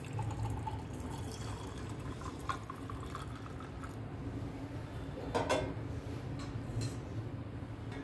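Milk pouring from a steel bowl into a glass over ice, a quiet liquid trickle. A few light clinks come through, the clearest about five seconds in.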